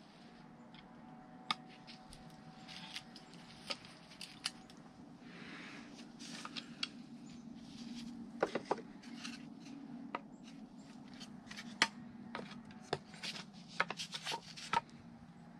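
Scattered light clicks, taps and scrapes of blend door parts being handled and fitted into a plastic HVAC heater box, over a steady low hum. The clicks come thicker in the second half.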